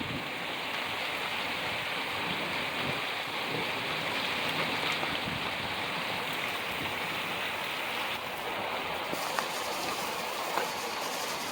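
Heavy torrential rain pouring steadily, mixed with the rush of flowing floodwater, with a couple of light taps near the end.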